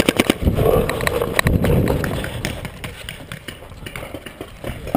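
Proto Rail paintball marker firing a rapid string of shots, about eight a second, that stops just after the start, then a short burst of three more shots about a second and a half in. Low rumbling movement noise follows as the player moves, with scattered faint clicks.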